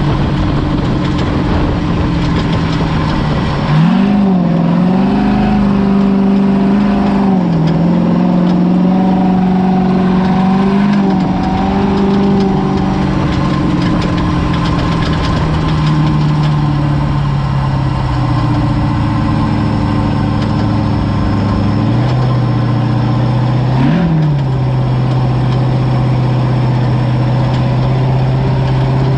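Ford Ranger desert race truck's engine running fairly steadily at low revs, with a few short blips of the throttle and a slight dip in pitch about two-thirds of the way through.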